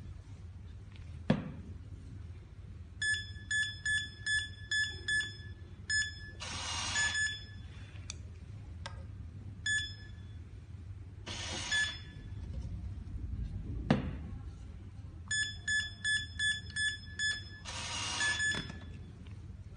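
Electronic cabinet lock with keypad and card reader beeping: quick runs of short beeps as keys are pressed, and single beeps, each group followed by a short noisy burst as the lock responds. Two sharp knocks, the loudest sounds, come about a second in and again about two-thirds of the way through.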